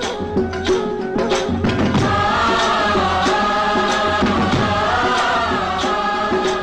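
Background music: an Indian-style song, with a held, wavering sung line through the middle over a steady drone and regular percussion strikes.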